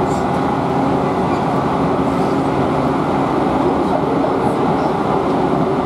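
Electric commuter train running, a steady wheel-and-motor noise that holds an even level throughout.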